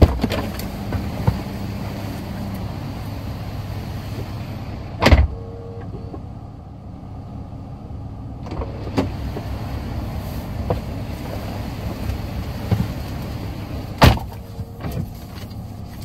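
Car door thudding shut twice, about five seconds in and again near the end, with smaller knocks of movement in between, over a steady low hum in the car's cabin.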